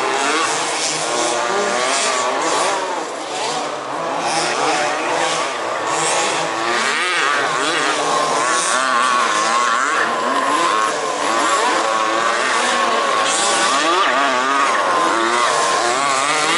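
Several 1/5-scale RC off-road race cars' small two-stroke petrol engines revving and easing off as they lap the track, their pitches overlapping and rising and falling constantly.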